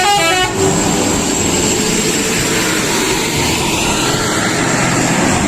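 A few quick toots of a telolet-style musical bus horn that stop about half a second in, then the steady running noise of a bus engine and traffic.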